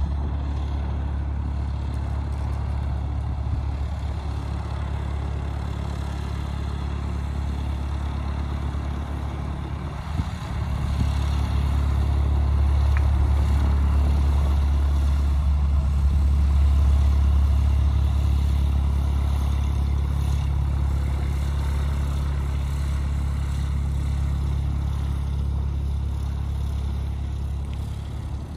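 Single-engine propeller plane's engine running with a steady low drone, going up in loudness about ten seconds in as power is applied for the takeoff roll.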